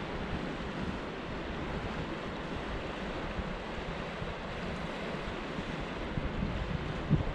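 Steady rushing of river water, with wind buffeting the microphone in low gusts near the end.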